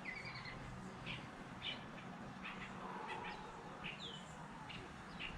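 Birds chirping faintly: a run of short, high chirps with a few quick falling whistles, over a soft background hiss.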